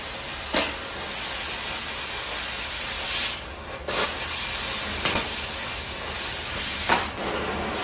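Cutting torch hissing steadily as it cuts through a steel stair stringer, with a few sharp pops and crackles. The hiss drops out briefly about three and a half seconds in.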